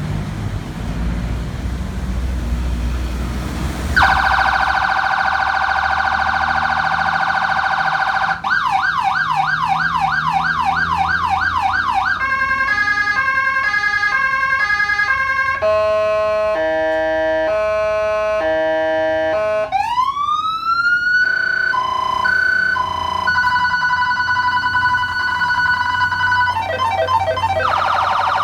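Electronic police and patrol-car siren run through its tone patterns one after another: a steady tone, a fast yelp, stepping multi-note patterns, a two-note hi-lo, a rising wail and a fast warble. A low rumble fills the first few seconds before the siren comes on.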